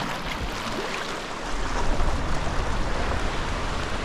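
Sea water splashing and washing around a sea kayak at the foot of the cliffs, with a low rumble joining about a second and a half in.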